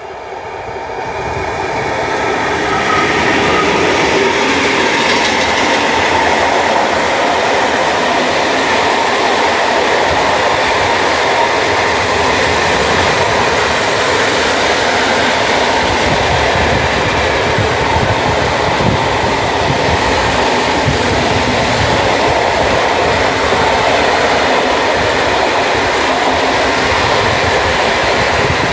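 Freight train of loaded open coal wagons passing close by. The sound swells over the first three seconds as the locomotive comes up, then holds as a loud, steady rumble of wheels on the rails as the wagons roll past.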